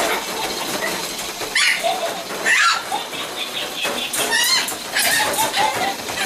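Young French bulldog puppies whining and squealing in several short high-pitched cries, over continuous rustling and scuffling of paws on bedding and the pen.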